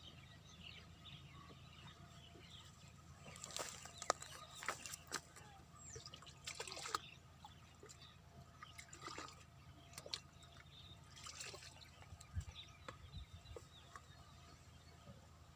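Faint water sounds, splashing and dripping, in a few short clusters of sharp little sounds with quieter stretches between.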